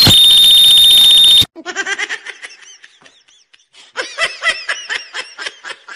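A harsh, very loud distorted blast with a shrill steady tone, added as a meme sound effect, lasting about a second and a half and cutting off suddenly. It is followed by rapid, high-pitched laughter.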